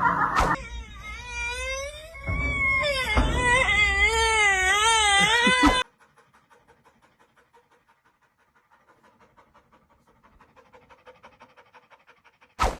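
An animal's wavering, whining cry, its pitch wobbling up and down for about five seconds before it cuts off suddenly. Near silence follows, broken near the end by a brief sharp click.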